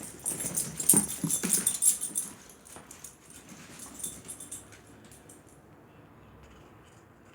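A dog making short, low sounds amid crackly noise, loudest in the first two seconds, then fading away.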